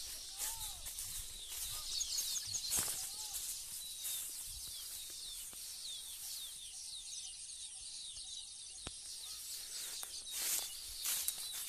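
Field ambience: many small birds chirping high and fast throughout, with a steady high insect trill for several seconds in the middle and a few brief rustles, as of movement through dry rice stubble.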